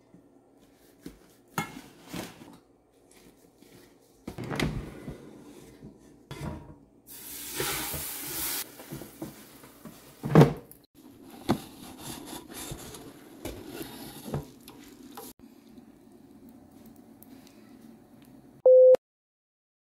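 Kitchen handling sounds: clinks and scrapes of stainless steel bowls and utensils, a hiss lasting about a second and a half, then a sharp clack as an air fryer basket is pulled out. Near the end comes a short, steady beep.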